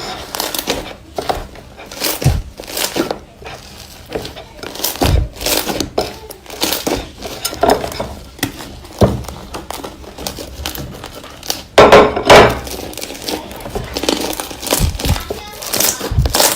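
Slime being squeezed, pressed and poked by hand, making a run of irregular crackles, pops and squishes, with the loudest, longest crackling burst about twelve seconds in.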